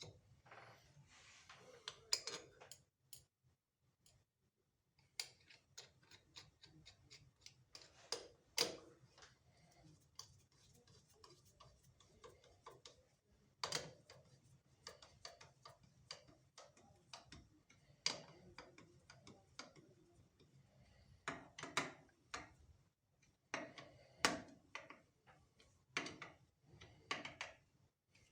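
Irregular small metallic clicks, taps and knocks of parts and tools being handled on a workbench, with no motor running.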